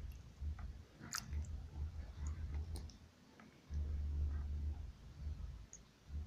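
Low rumble on the microphone that comes and goes, with a few faint sharp clicks and light water sounds of a hand working in a tub of water.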